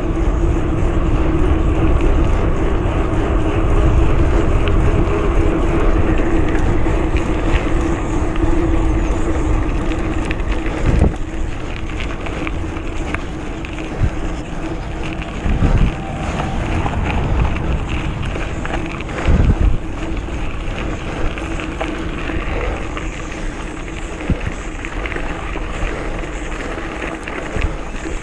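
Wind buffeting the microphone over the rumble of a retro Norco Bush Pilot mountain bike rolling along a trail, with a few sharp knocks from bumps.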